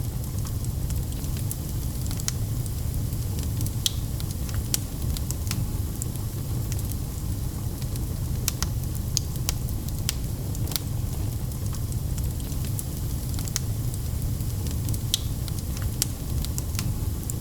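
Wood fire in a fireplace crackling, with irregular sharp pops and snaps scattered over a steady low rumble.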